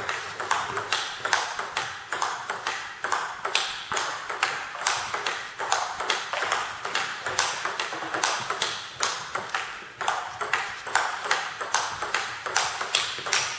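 Table tennis rally: the celluloid-type ball clicking off the bats and bouncing on the table several times a second in a steady, unbroken rhythm, with one bat fitted with the Nittaku Monophonic rubber under test. The clicks ring briefly in the hard-walled sports hall.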